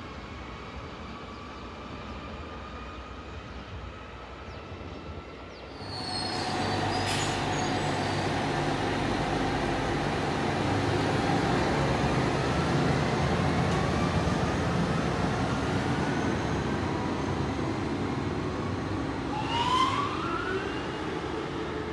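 Alstom Régiolis (Coradia Polyvalent) regional multiple unit: first a quieter approaching train, then, about six seconds in, the louder sound of a Régiolis pulling along the platform, a low running hum under whines that rise in pitch as it accelerates, with a sharper rising whine near the end.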